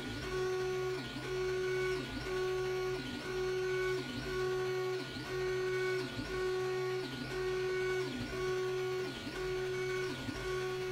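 Creality Ender 3 printer's bed stepper motor whining as it drives the bed back and forth at a steady rhythm, the pitch dipping and climbing back at each reversal about once a second, over a steady low hum.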